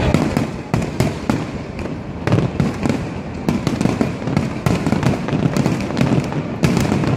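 Fireworks display going off: many sharp bangs and crackles in quick, irregular succession, several a second, over a continuous low rumble.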